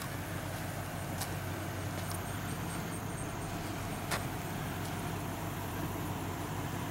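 A steady low hum over an even rushing background, with a faint click about a second in and another around four seconds in.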